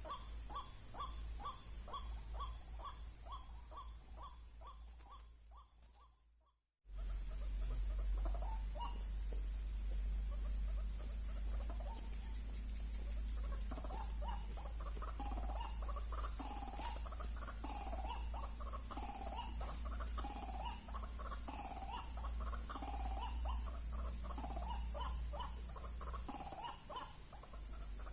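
White-breasted waterhen calls: rapid repeated notes, about four a second, that fade and cut off about seven seconds in. The calls then resume as a busier run of varied, repeated calls until the end. A steady high whine and a low hum run underneath.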